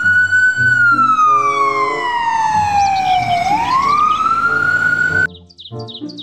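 Ambulance siren wailing: one tone rising, sliding slowly down and climbing again, over background music. The siren cuts off suddenly about five seconds in, and bird chirps follow over the music.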